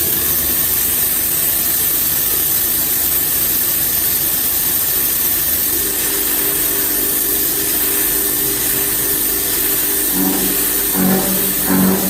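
Whirling milling machine running steadily with a constant hiss. About ten seconds in, rhythmic plucked-guitar music begins.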